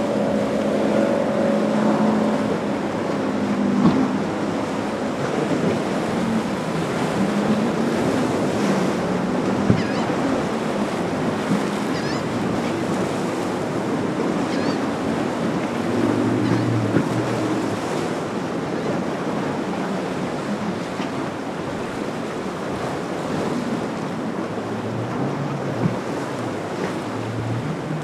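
Rough surf and wind noise as waves break in a choppy inlet, with a boat's engine droning faintly at times under the water noise.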